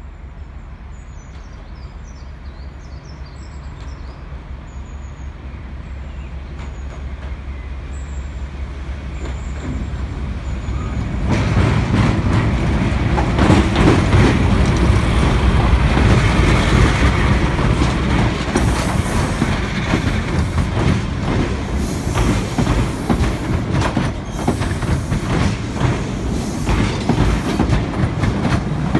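Class 52 Western diesel-hydraulic locomotive D1062, with its twin Maybach diesel engines, approaching and growing steadily louder, then suddenly much louder as it passes close about a third of the way in. Its coaches then roll past with a rhythmic clickety-clack of wheels over rail joints.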